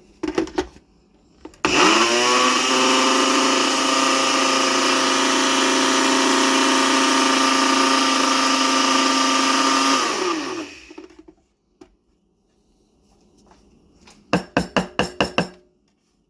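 Ninja blender motor grinding coffee beans: it spins up with a rising whine about two seconds in, runs steadily for about eight seconds, then winds down with a falling pitch. Near the end comes a quick run of about six short, loud pulses.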